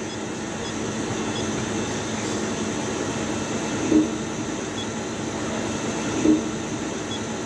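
Steady fan-like mechanical hum of a machine shop, with a low steady tone under it. Two short low blips come about four and six seconds in.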